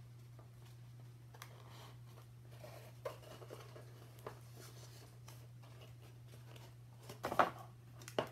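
Cardboard pieces being handled and pressed together by hand: faint rustles and light taps, with a louder scuffing knock about seven seconds in and a sharp click near the end, over a steady low hum.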